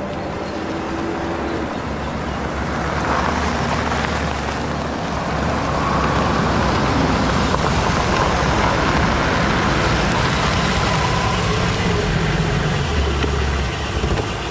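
A Mercedes-Benz saloon driving up over a dirt lot and pulling in, its engine and tyres getting louder about three seconds in.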